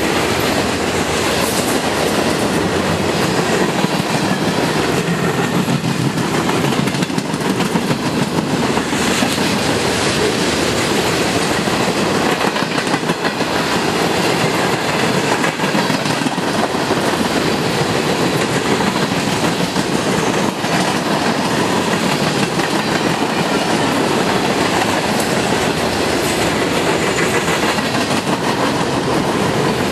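CN train 368 rolling past on the track: a loud, steady rumble and rattle of wheels on rail as its cars go by.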